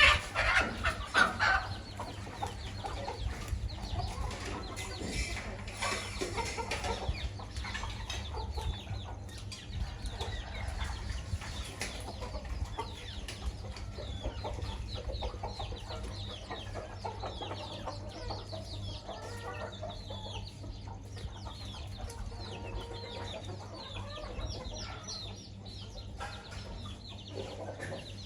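Chickens clucking while feeding, with many short, high chick peeps throughout. The clucking is loudest in the first second or so, and a steady low hum runs underneath.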